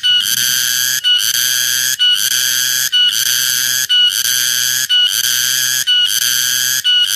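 A cicada calling: a loud, shrill buzz broken by a short gap about once a second. Each phrase starts with a brief louder onset and then holds steady.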